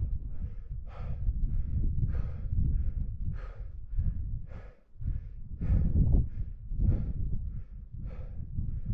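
A scrambler's quick, heavy breathing from exertion, about two breaths a second, with a steady low rumble of wind on the microphone.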